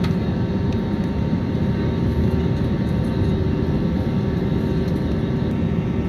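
Jet airliner engines heard from inside the passenger cabin while the aircraft taxis: a steady low rumble with a faint steady whine.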